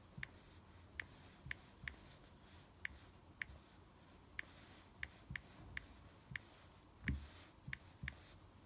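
Phone's on-screen keyboard giving a short high tick with each keypress as text is typed, about two a second at an uneven pace, with soft low taps of the fingertip on the screen and one slightly louder low thump about seven seconds in.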